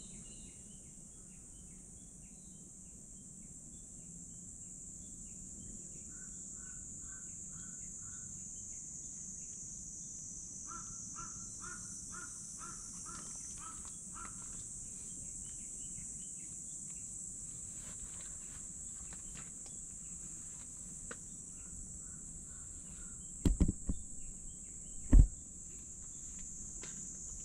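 Crows cawing in quick repeated runs over a steady high-pitched drone of cicadas. Two loud thumps come near the end.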